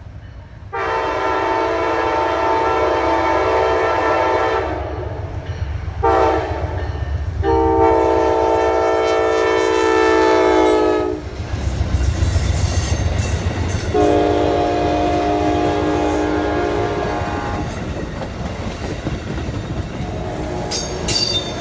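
Horn of the arriving Amtrak Carolinian passenger train's locomotive sounding three long blasts and one short one, over the steady rumble of the diesel engine and the wheels clacking on the rails.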